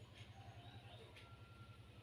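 Near silence: room tone with a steady low hum and a few faint, thin high tones.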